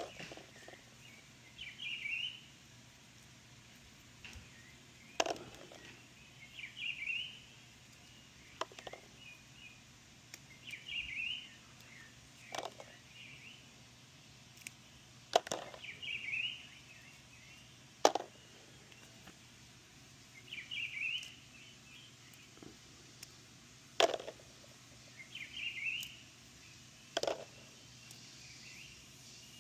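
Birdsong: a short phrase repeated about every four to five seconds, with sharp clicks in between, which are the loudest sounds.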